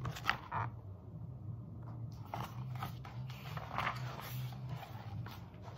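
Paper rustling and soft handling noises as the pages of a picture book are turned, over a low steady hum.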